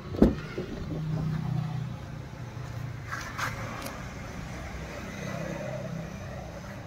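Ford EcoSport front door unlatched and pulled open: one sharp clack of the latch about a quarter second in, then a low steady hum with a few light clicks.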